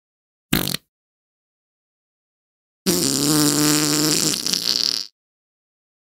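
Two fart sound effects. The first is a short blip about half a second in. The second is a longer, pitched fart of about two seconds that breaks into a sputter near its end.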